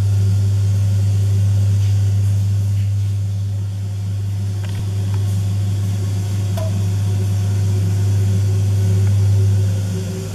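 Steady low electric hum of aquarium equipment such as a pump or filter, easing off near the end, with a few faint ticks.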